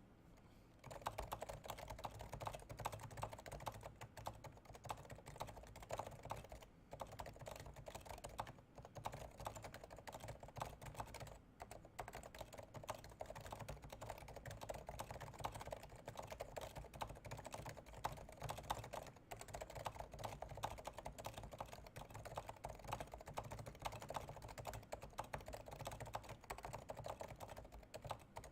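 Fast touch-typing on a Realforce 108U keyboard with Topre uniform 45 g switches, silenced and lubed: a dense, unbroken patter of keystrokes that starts about a second in, with a few brief pauses.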